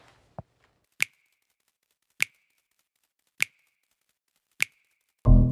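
A low thump and a smaller knock, then four sharp, evenly spaced ticks about a second and a bit apart, like a slow metronome. Music with a deep bass comes in just before the end.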